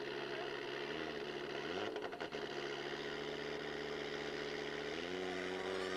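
A car engine running at a held, even pitch that steps up twice, about two seconds in and again near five seconds. There are a few quick crackles around the first rise.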